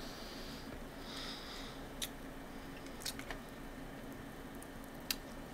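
Faint mouth sounds of someone tasting a liquid soda-flavoured candy: two short sucking hisses in the first two seconds, then a few soft lip and tongue clicks.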